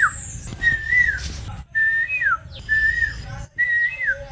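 Whistling: a short high note held and then sliding down, repeated roughly once a second.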